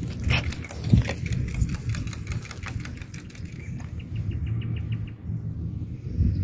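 Stones clicking together as a loose stone is lifted and handled among pebbles, with a steady low rumble underneath. Just after the middle comes a quick, even run of about eight short high ticks.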